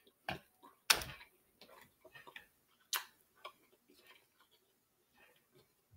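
Scattered short clicks and smacks of eating at a table, up close, loudest about a second in and again near three seconds, with fainter ticks between.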